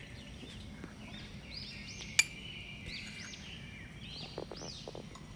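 Small birds chirping in the background, a string of short arched chirps repeated every second or so. There is one sharp click about two seconds in and a few soft taps near the end.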